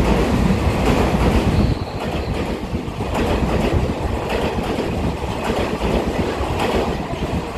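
Taiwan Railway EMU3000 electric multiple-unit express train running close past the platform, a steady rush of wheel and rail noise that is loudest in the first couple of seconds.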